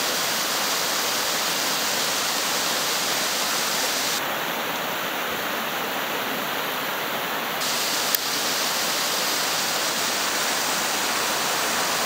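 Waterfall splashing down a rock face: a steady rush of falling water, with a single sharp click about eight seconds in.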